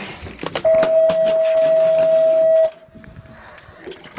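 A steady electronic beep holding one pitch for about two seconds, with scattered clicks and knocks around it.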